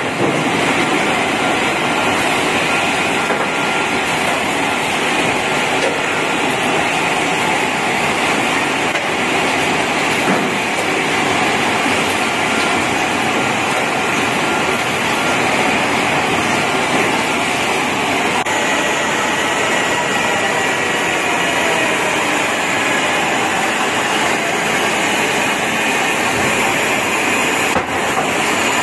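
Receipt paper roll production machine running: a steady mechanical noise with faint steady whining tones, unchanging in level.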